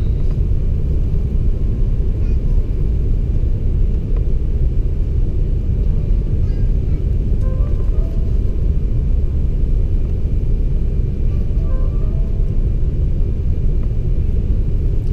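Cabin noise inside an Airbus A380 on its descent to land: a steady, even low roar of engines and airflow. Faint, brief voices rise above it a few times.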